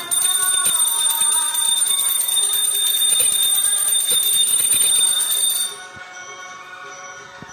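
A small hand bell, as rung in puja, ringing rapidly and continuously with high bright tones, stopping suddenly about five and a half seconds in. Music with singing plays more quietly underneath and carries on after the bell stops.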